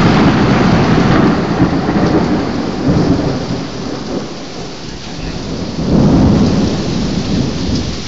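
Thunder rolling over heavy rain: a long rumble at the start that slowly eases off, then a second swell of rumbling about six seconds in, over the steady hiss of the downpour.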